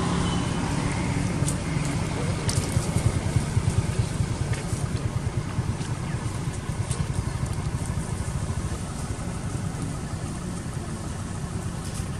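A motor running steadily with a low hum that flutters quickly, with a few faint clicks.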